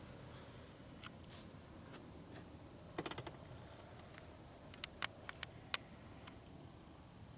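Sharp clicks over a faint, steady background: a quick run of clicks about three seconds in, then four or five separate clicks about a second later.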